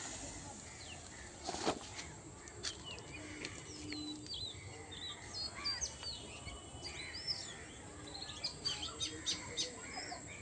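Small birds chirping and twittering in quick, short rising and falling notes through most of the stretch, with a sharp knock about a second and a half in.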